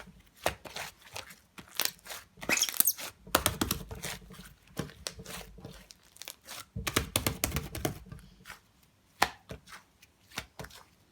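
Swirled slime being played with by hand, giving scattered sticky clicks and pops. There are two longer bouts of squishing and crackling, about a third of the way in and again about two thirds in.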